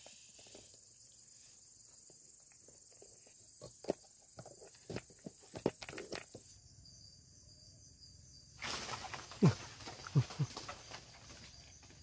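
Crickets chirring steadily. Scattered knocks and clatter come from about four to six seconds in, then a louder burst of rustling with a few quick swishes around nine to eleven seconds in, as a bamboo pole is worked among branches and leaves.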